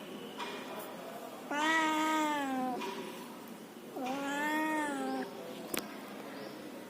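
A domestic cat meowing twice, each meow about a second long with a low, slightly arched pitch, followed by a single short click.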